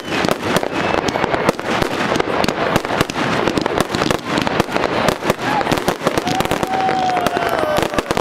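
Fireworks display: a dense, steady barrage of aerial shell bursts, with many bangs and crackles every second.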